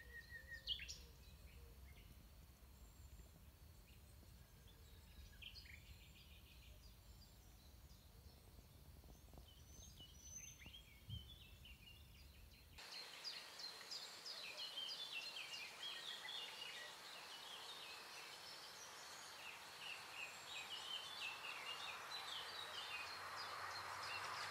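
Faint songbirds singing and chirping, with several birds calling over one another and a low rumble underneath. The birdsong gets louder from about halfway through.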